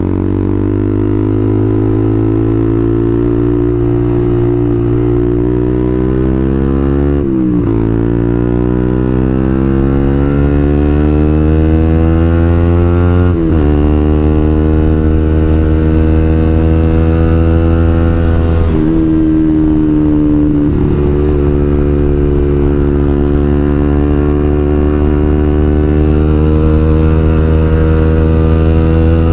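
Suzuki GSX-R150's single-cylinder engine breathing through a WRX New GP K2 racing exhaust as the bike pulls away on the road. The pitch climbs steadily and drops at three upshifts a few seconds apart. After the third shift the engine settles into a steady cruise, the revs creeping up slowly.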